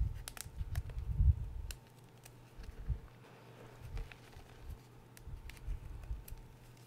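Fingers digging and squeezing through crumbled gym chalk powder and small chunks: soft scrunching with dull thumps and small crackles of chunks breaking. Busiest in the first two seconds, then quieter with only occasional crackles.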